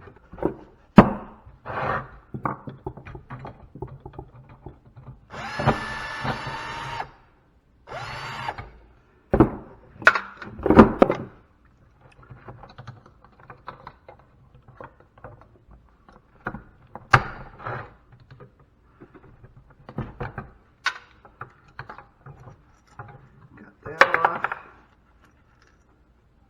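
Scattered clinks, clicks and knocks of tools and metal parts as scrap equipment is taken apart by hand, with a short whirring burst about five seconds in and a briefer one about eight seconds in.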